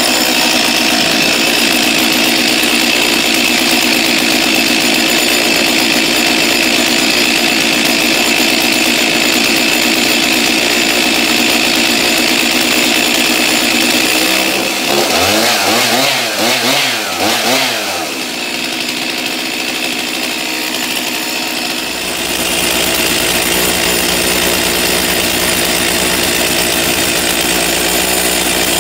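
Stihl MS 362 two-stroke chainsaw running steadily. About halfway through, the throttle is worked several times so the engine pitch swings up and down, then it runs quieter and lower for a few seconds before running steadily and louder again.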